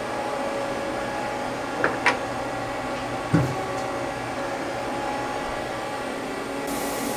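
A round metal workpiece being set into the lathe's chuck jaws: a couple of light metallic clicks, then a single heavier knock about three seconds in, over a steady machine hum.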